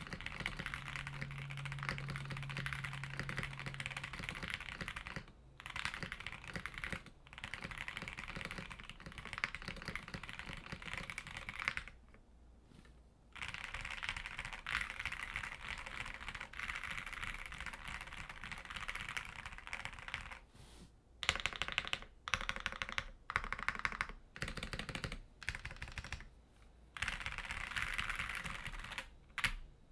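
Typing on a mechanical keyboard with stock NovelKeys Silk Emerald linear switches, a polycarbonate plate and PBT keycaps: fast, continuous keystrokes broken by brief pauses, then slower, separate key presses in the last third. A little spring crunch is audible.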